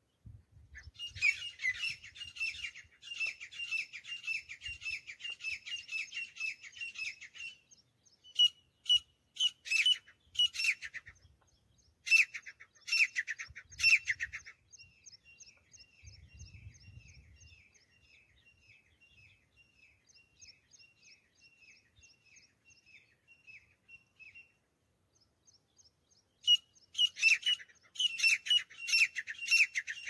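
Grey francolin calling: rapid series of shrill, repeated notes. Loud bouts come near the start, again a few seconds later, and near the end, with a fainter run of notes in between.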